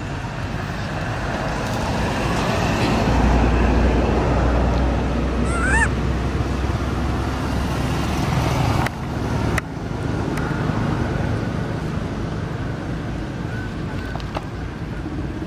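Outdoor traffic noise: a vehicle's low rumble swells through the middle and fades, with a short rising squeak about six seconds in.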